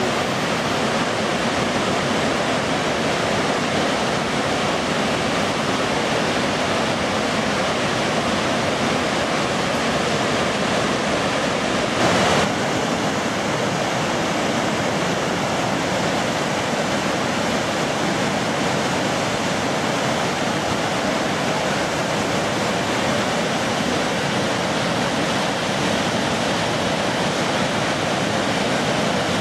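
Gullfoss, a large two-tier waterfall, giving a steady, unbroken rush of falling water. There is one brief louder burst about halfway through.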